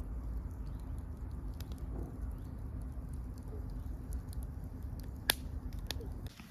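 Campfire crackling over a steady low rush, with small scattered ticks and two sharp pops about half a second apart near the end.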